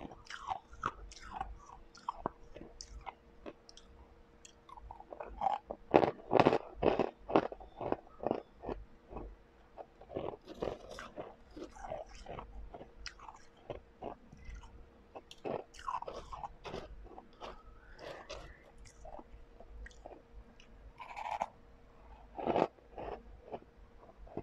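Close-up crunching and chewing of refrozen blended ice, in runs of sharp crunches that are loudest a few seconds in and again near the end.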